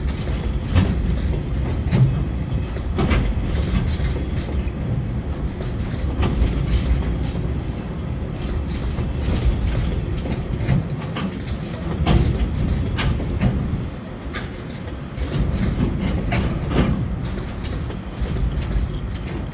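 Container flat wagons of a freight train rolling past: a steady low rumble with irregular clacks as the wheels cross rail joints.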